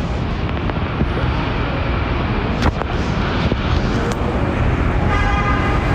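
Steady low rumble of city traffic, with a brief pitched tone about five seconds in.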